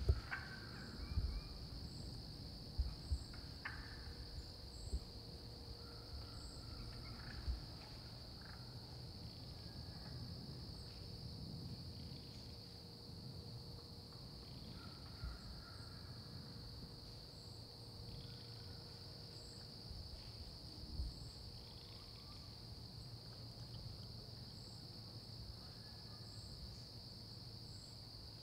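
Steady trilling insect chorus of crickets. Faint short hen turkey calls come and go, mostly in the first half, with a few low knocks in the first several seconds.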